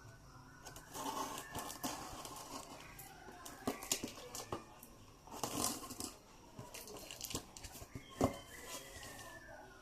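Packaging being torn open and crinkled by hand, with irregular rustling and scattered clicks and a sharper knock about eight seconds in.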